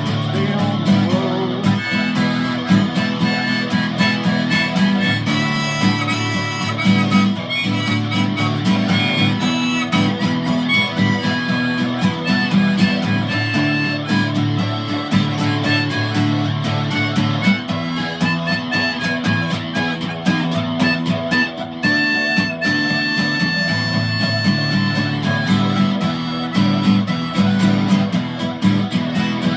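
Blues on strummed guitar with a harmonica playing long held notes over it.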